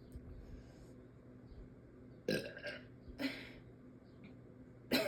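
A young woman belching: a loud burp about two seconds in, a shorter one about a second later, and another starting at the very end.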